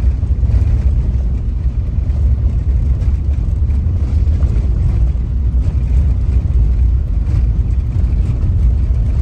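Steady low rumble of a car on the move: engine and tyre noise heard from inside the cabin.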